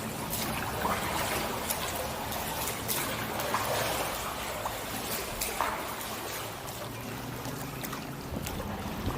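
Water trickling and splashing off a kayak paddle as it dips and lifts in steady strokes.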